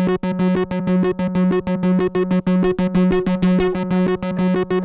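Donner B1 analog bass synthesizer, a TB-303 clone, with its sequencer playing a pattern of fast, evenly repeated bass notes, mostly on one pitch. The gate length is turned up, so each note runs almost into the next with only a brief dip between.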